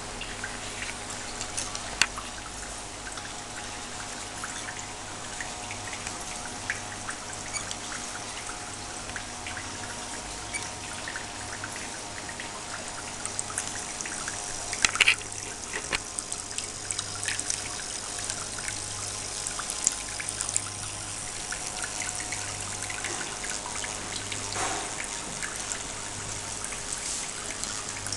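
Water trickling and pouring steadily over a low steady hum, with scattered small clicks and a brief louder clatter about halfway through.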